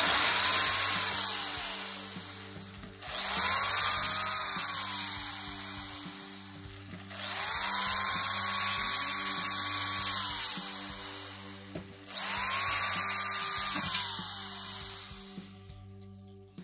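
Electric drill spinning a dull twist drill bit pressed against a steel tube. The motor winds up, runs with a hiss of the bit rubbing on the steel, then winds down. This happens four times: the first run is already going at the start, and new ones begin about 3, 7 and 12 seconds in. The blunt bit does not bite into the steel. Faint background music runs underneath.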